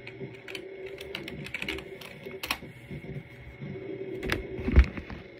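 Irregular clicks of typing on a keyboard, with a dull thump near the end.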